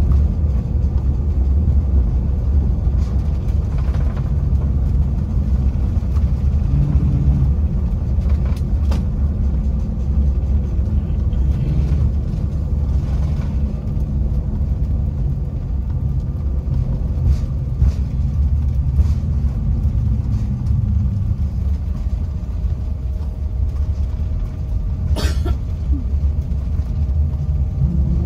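Cabin noise of a Bombardier CRJ900 rolling on the ground after landing: a steady low rumble from its rear-mounted CF34 turbofans and the wheels on the concrete. One sharp click near the end.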